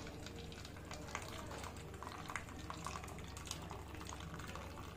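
Boiled milk trickling in a thin stream through a plastic tea strainer into a stainless-steel bowl, with faint splashing and small drips; the milk is being strained to catch its skin.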